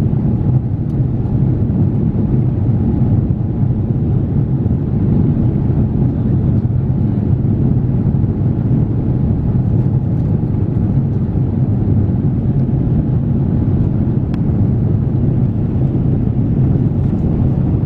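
Jet airliner in cruise, heard inside the cabin: a steady low rumble of engines and airflow.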